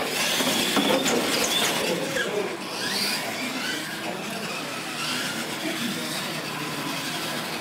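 Two electric radio-controlled monster trucks racing on a concrete floor, their motors and drivetrains whining and rising and falling in pitch over the rumble of the tyres. It is loudest in the first couple of seconds, then eases off.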